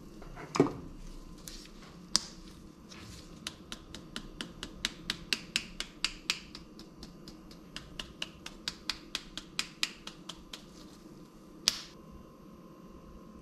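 A frying pan set down with a clunk about half a second in, then a hand pepper grinder twisted over and over, giving a run of quick sharp clicks, several a second, for several seconds. One more sharp knock comes near the end.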